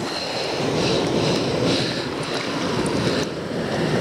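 Steady rush of a small, clear mountain creek flowing over stones, heard close to the water, with a few faint splashes.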